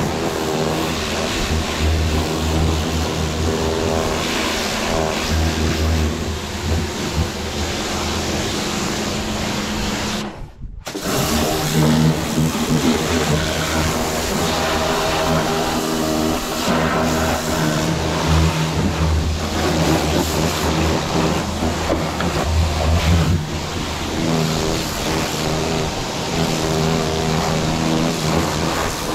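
An engine running steadily, with a brief cut-out about ten and a half seconds in.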